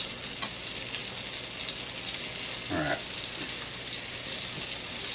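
Cornmeal-and-flour battered swai fillet frying in hot oil in a cast iron skillet: a steady sizzle full of fine crackles.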